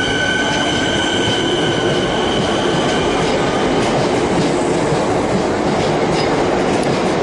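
Melbourne Metro suburban electric train moving past the platform at close range. A steady high-pitched whine fades out about three seconds in, leaving the rolling rumble of the cars with faint clicks of the wheels over the rails.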